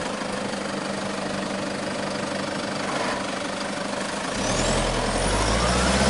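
Toyota Land Cruiser's engine running steadily at a slow off-road crawl, then pulling harder with a deeper, louder note about four seconds in as the vehicle climbs over the crest of a dirt mound.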